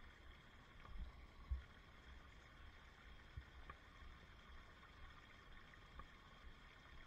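Faint ride noise on a helmet-mounted microphone: a low wind rumble with a few soft thumps, the loudest about a second and a half in.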